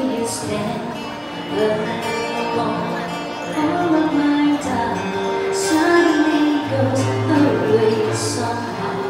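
A woman singing a slow song into a microphone, accompanied by an acoustic guitar.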